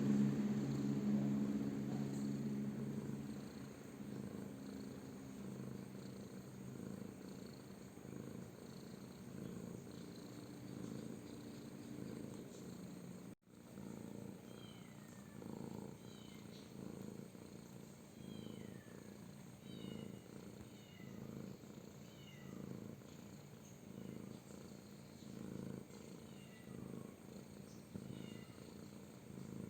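A domestic cat purring: a low rhythmic rumble that swells and fades about once a second with each breath. A louder steady hum dies away over the first few seconds.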